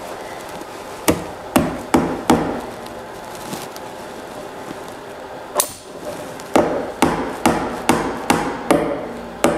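Upholstery tack hammer driving decorative tacks through braided trim into an oak chair frame: four quick taps about a second in, a single strike midway, then a steady run of taps, a little over two a second, near the end.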